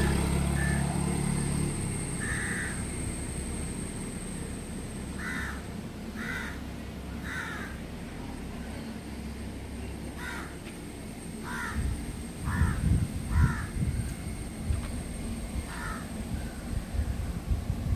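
Crows cawing in short calls, about a dozen spread irregularly a second or more apart. A low rumble fades away in the first couple of seconds, and low, uneven thumping rumbles set in about twelve seconds in.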